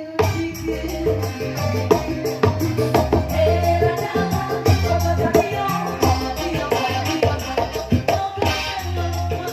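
Tarling band playing live through a PA system: a steady beat of hand drums and shaker-like rattles over bass notes, with a melody line running through.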